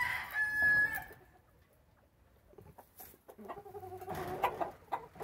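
Chickens calling from their wire coop: a short high call in the first second, then a longer pitched call about three and a half seconds in, with a few scattered clicks.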